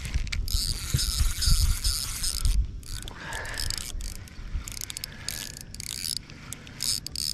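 Spinning reel being cranked: its gears whir in a rhythmic pattern for the first couple of seconds, then in shorter spurts. Wind buffets the microphone throughout.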